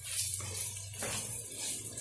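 Spatula stirring and scraping diced chicken and vegetables around a frying pan, in scratchy strokes about every half second, over a steady low hum.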